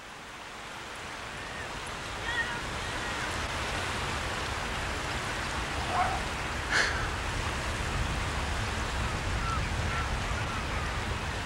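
Steady rush of wind and small lapping waves, growing louder over the first few seconds, with gulls calling now and then.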